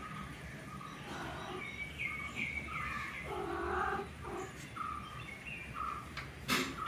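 A cat's drawn-out meow about three seconds in, over short bird calls repeating in the background. A sharp click comes near the end.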